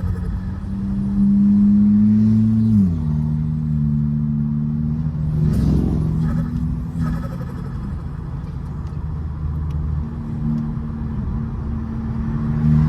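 Turbocharged VW Golf's engine running while driving. It is louder for a couple of seconds, then the pitch drops about three seconds in as the revs fall, and it runs at a steady lower speed after that.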